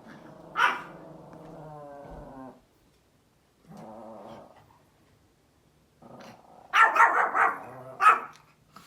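Small Pomeranian growling and barking: one sharp bark less than a second in, a low growl, a second shorter growl, then a quick run of about four barks and one more near the end.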